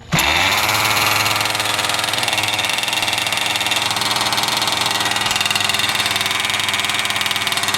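Small engine of a radio-controlled model catching just as the sound begins, then idling steadily at an even speed.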